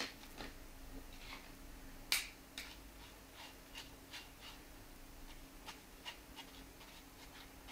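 A metal spoon scraping and tapping inside a small wire-mesh sieve as it pushes flour and baking powder through: a run of light, irregular clicks, the sharpest about two seconds in.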